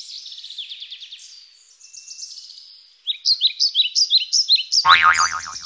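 Small birds chirping in quick, repeated high calls, several a second. The calls thin to a lull in the middle, then start again at full strength. Near the end a short, loud falling sweep of pitch cuts across them.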